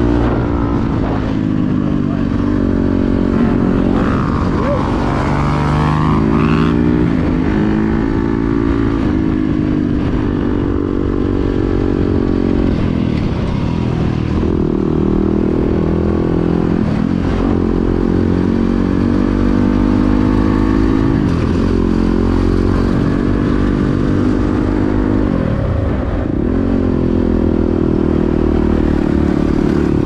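Yamaha dirt bike engine running while ridden down a paved street, its pitch climbing under throttle and dropping back several times as it shifts gears or backs off.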